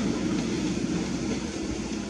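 Walking tractor's diesel engine running steadily, a constant hum over mechanical noise that comes in abruptly at the start.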